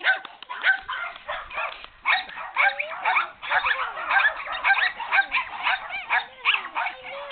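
White miniature schnauzer puppy yapping and yipping excitedly in play: a continuous run of short calls, several a second, many falling in pitch.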